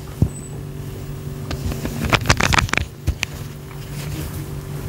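Steady low machine hum, with scattered sharp clicks and a quick run of clicks a little over two seconds in.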